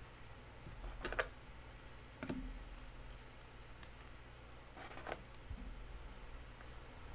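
Faint handling of trading cards: a few brief scrapes of cards sliding against each other and a light click, over a low steady room hum.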